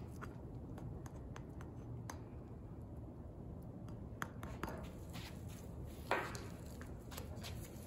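Faint handling noises of gloved hands working a tube of Permatex gasket maker around the bore of a cast-iron PTO seal housing: scattered small clicks and taps, with one louder short noise about six seconds in.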